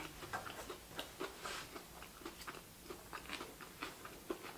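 Quiet eating sounds: chewing sushi, with many small irregular clicks and smacks picked up close to the microphone.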